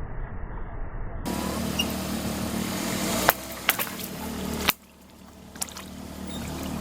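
Car engine running steadily while several sharp cracks and pops go off, objects breaking under the tyres. The sound changes abruptly twice, at the edits between clips.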